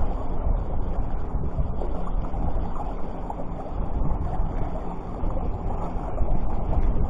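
Wind buffeting the microphone in a steady, uneven rumble, over a wash of sea surf.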